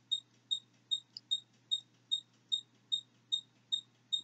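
A short high-pitched chirp repeating very evenly, about two and a half times a second, over a faint steady low hum.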